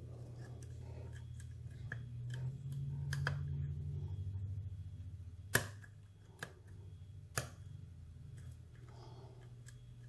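A steel lock pick working the pins of a 38 mm Ace brass padlock under a tension wrench: a string of small metallic clicks and scrapes, with two sharper clicks about five and a half and seven and a half seconds in. A low steady hum runs underneath.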